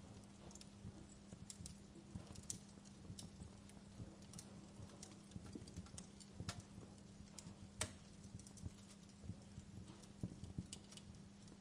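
Fire crackling faintly: irregular sharp pops and snaps over a low rumble, with one louder snap about two-thirds of the way through and a steady low hum underneath.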